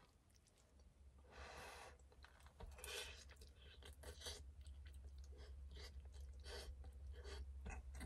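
A person eating mouthfuls of pasta: quiet chewing and mouth sounds in short, scattered bursts, over a steady low hum.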